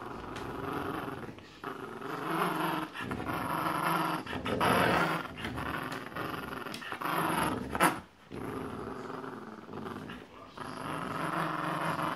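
Dogs growling in play while tugging on a plush toy, a rough, continuous growl in long bouts with short breaks. A sharp click about eight seconds in.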